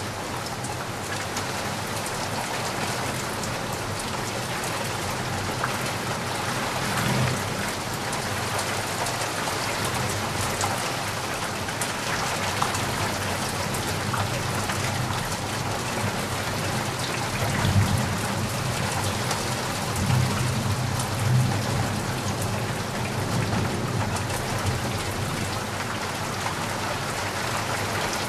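Steady rain falling, a dense even hiss, with a few low rumbles of thunder, the strongest about two-thirds of the way through.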